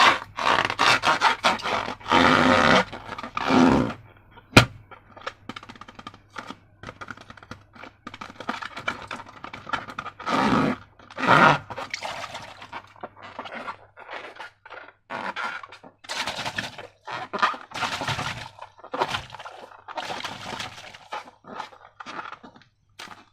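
Hands working slime and balloon material: an irregular run of scraping, squishing and crinkling handling sounds, with one sharp click about four and a half seconds in.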